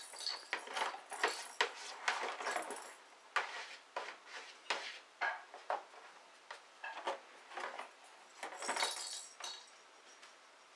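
Cat clawing and batting at a cardboard beer case: a string of sharp, irregular crackling scrapes and taps, with a longer scratching burst near the end.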